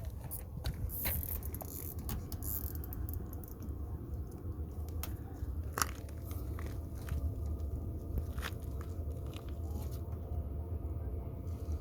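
Scattered clicks, scrapes and crunches of hands working on a motorhome's waste outlet fittings, over a steady low rumble.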